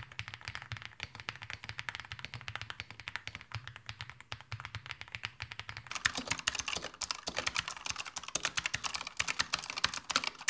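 Typing on an Akko MonsGeek M1 V5, an all-aluminium mechanical keyboard with lubed linear switches and PBT keycaps: a fast, continuous run of keystrokes. It is softer at first and grows louder about six seconds in.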